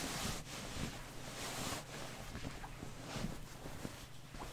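Soft rustling and handling of fabric as a printed body pillow and its pillowcase are moved about.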